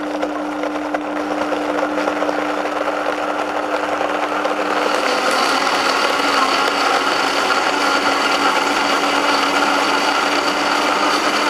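Vitamix blender running at speed, blending a fish mousse of salmon, egg whites and cream. A steady motor whine over the churning of the jar; about halfway through the pitch drops slightly and the blending noise gets brighter.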